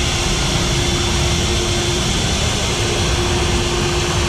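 Electric hand mixer running steadily, its beaters whipping beaten eggs in a steel bowl, with a steady motor whine.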